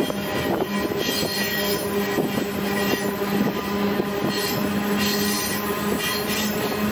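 Ore wagon of the Mauritanian iron ore train rolling along, heard from inside the open wagon: steady rattling and clanking of the wagon over the track with a continuous low hum.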